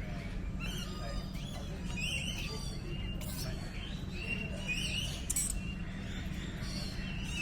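Birds chirping and calling, with short repeated chirps and quick sweeping calls coming every second or so, over a steady low rumble.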